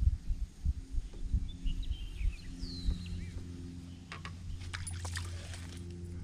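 Outdoor ambience over a steady low hum: a few low thumps and knocks in the first half, a short bird call about two and a half seconds in, then a run of small sharp clicks near the end.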